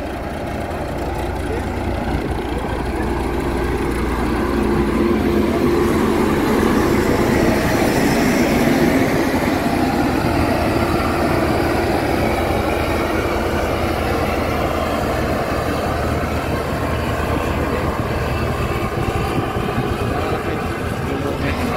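Müller single-drum roller's diesel engine running as the machine drives past compacting gravel, with a steady low rumble that grows louder as it comes close, about eight seconds in, and eases slightly as it moves away.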